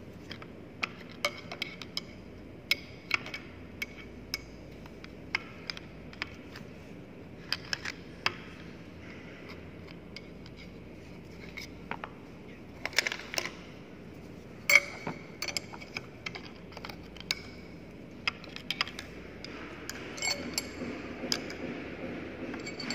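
Irregular sharp metallic taps and clinks of a flat-head screwdriver pushing and tapping a part along a centrifugal pump's steel shaft into its cast housing, with a few louder knocks about 13 and 15 seconds in.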